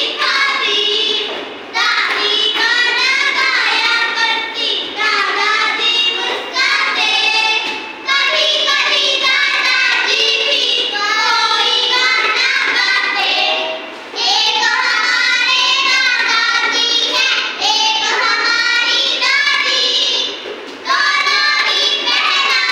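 Young children singing a Hindi poem, line by line, with short pauses between phrases.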